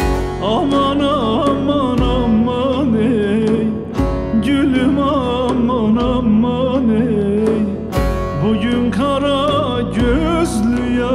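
Turkish folk song (türkü) performed live: a man sings winding, ornamented lines over a strummed bağlama (long-necked saz), with a deep drum beat about every two seconds.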